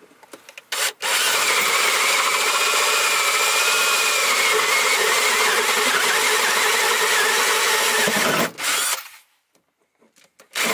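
Power drill spinning a 35 mm hole saw through a plywood floor. After a short blip of the trigger, the drill runs under load with a wavering whine for about seven seconds while the saw cuts. It stops, gives one quick burst, goes quiet, and gives another short burst near the end.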